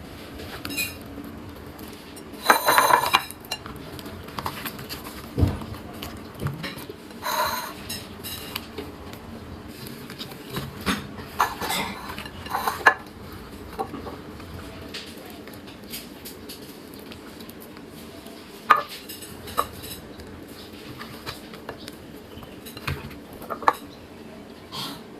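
Hard objects being handled, with irregular clinks and knocks now and then, clustered a few seconds apart.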